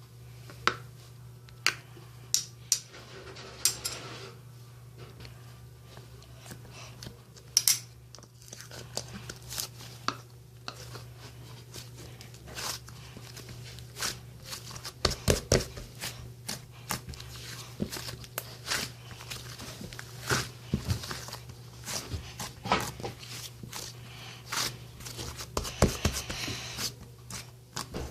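Close handling sounds: scattered crinkling, tearing and sharp clicks, as of paper or plastic packaging being handled, over a steady low hum.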